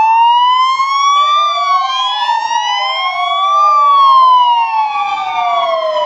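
Two ambulance sirens wailing together. Each one's pitch slowly rises and falls over a couple of seconds, and the two are out of step, so their tones cross.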